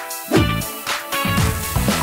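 Upbeat background music with a steady drum beat and bass line.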